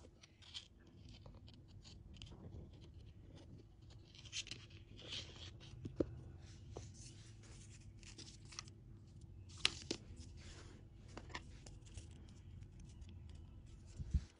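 Hands handling wine corks and a thin bamboo stick on a tabletop: scattered light clicks and taps with soft scraping and rustling, the sharpest clicks about six and ten seconds in, over a faint steady hum.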